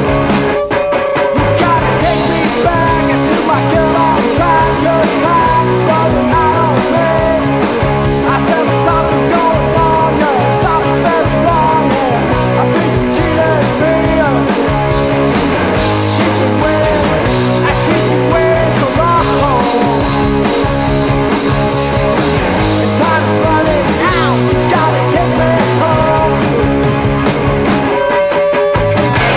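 Garage rock band recording playing, with electric guitar up front.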